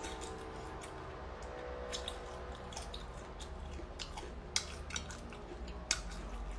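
Close-up chewing of raw marinated seafood: wet, squishy mouth sounds with irregular sharp clicks and snaps.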